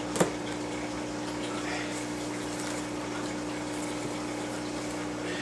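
Steady hum with a wash of moving water from running aquarium pumps, with one sharp click just after the start.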